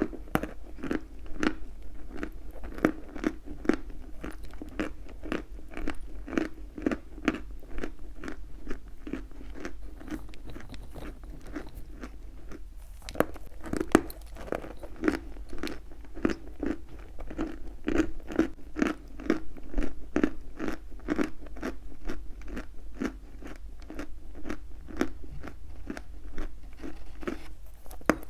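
Chalk being chewed close to the microphone: a steady run of crisp crunches, about two or three a second, with a short pause a little before halfway.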